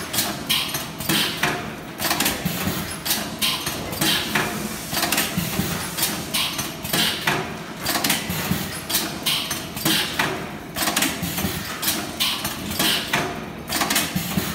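Automatic wire ring making machine running, its mechanism clacking in a quick repeated cycle of about two to three strokes a second over a steady machine hum.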